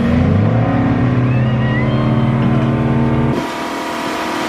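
Motorboat engine running under way, its pitch rising just after the start, then holding steady. About three seconds in it cuts off abruptly and gives way to a steady rush of wind and water.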